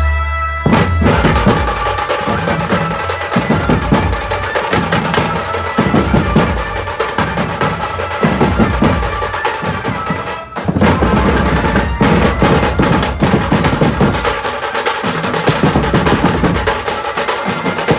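Dhumal band music: fast, dense drumming with bass drum and snare-like rolls under a sustained melody line. The drums come in just under a second in and drop out briefly about ten and a half seconds in before starting again.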